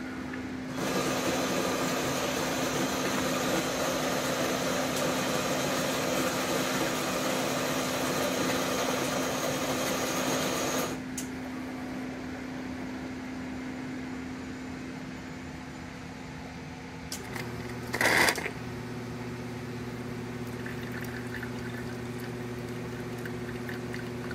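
Schaerer Barista espresso machine's built-in grinder running for about ten seconds and then stopping, under the machine's steady hum. Later a short loud burst comes, and a new steady low hum starts as the machine moves toward brewing.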